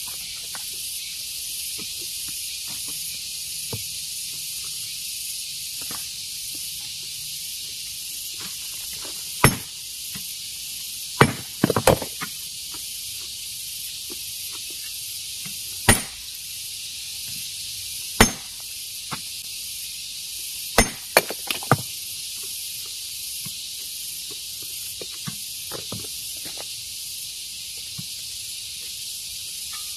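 Hammer blows on stone: about a dozen sharp, irregular knocks, some single and some in quick clusters of two or three, over a steady high-pitched hiss.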